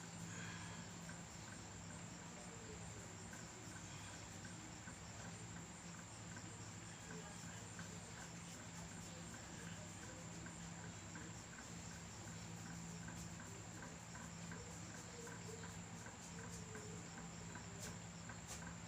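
Faint, steady, high-pitched insect trill over a low steady hum.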